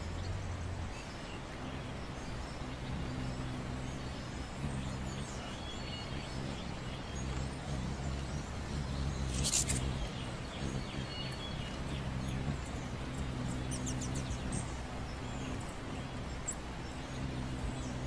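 Hummingbirds hovering: a low wing hum that comes and goes, with faint scattered chirps and one sharper chirp about halfway through.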